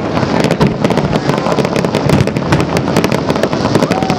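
Fireworks display: aerial shells bursting with a dense, rapid run of sharp bangs and crackles in quick succession.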